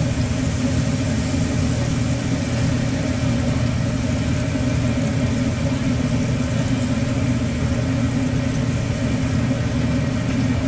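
Steady low mechanical drone of a food truck's kitchen machinery running, with a few steady tones riding above it and no change throughout.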